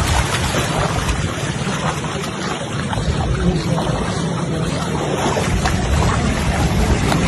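Steady wind buffeting the microphone, with the low drone of an engine running underneath.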